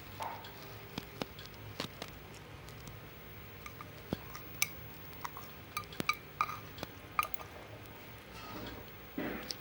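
Slime being squeezed and kneaded by hand, making scattered small wet clicks and pops.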